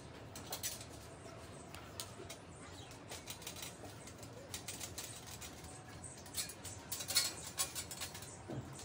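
Light metal clicks and scrapes of a hand screwdriver turning a screw that fixes a steel strip to a stainless steel rack frame, with the clicks thickest and loudest about seven seconds in.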